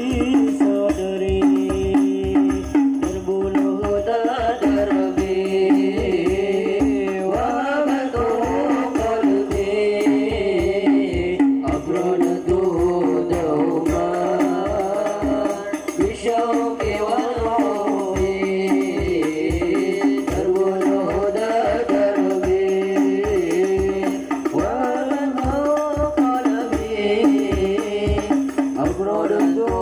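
Hadroh music: male voices singing a devotional sholawat melody together through microphones and a PA loudspeaker, over a steady beat of hand-struck rebana frame drums.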